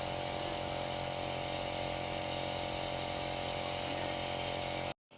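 A steady mechanical hum over a hiss, with several fixed tones and no change in speed. It cuts off suddenly near the end.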